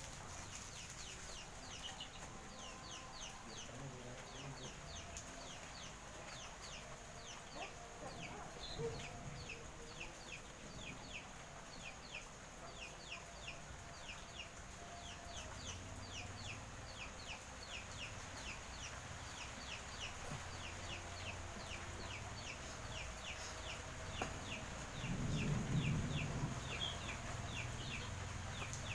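Outdoor animal sounds: a steady run of short, high chirps, about three a second, with fainter lower calls, and a low rumble swelling briefly about 25 seconds in.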